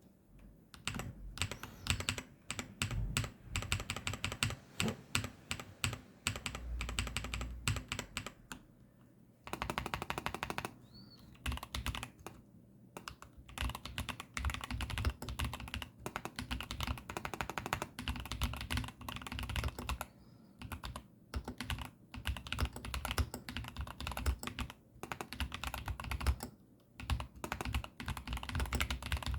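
Typing on a Keychron V10 Pro Max gasket-mounted mechanical keyboard with pre-lubed Gateron Banana switches: quick runs of clacking keystrokes broken by brief pauses.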